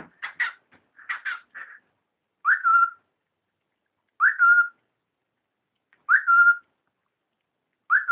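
Cockatiel whistling: a few short chirps, then the same short whistle four times about two seconds apart, each a quick upward swoop that settles on a held note.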